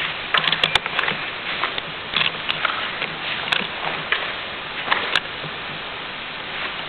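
Steady hiss of a hall recorded on an old low-fidelity camcorder, with a handful of sharp clicks in the first second and single clicks about three and a half and five seconds in.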